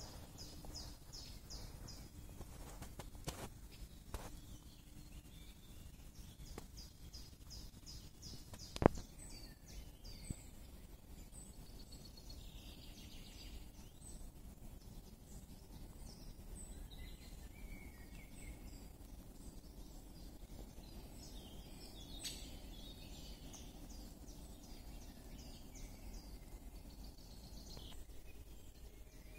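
Small songbirds singing and calling, with two quick runs of high repeated notes in the first eight seconds and scattered chirps after, over a low steady background rumble. A single sharp click about nine seconds in is the loudest sound.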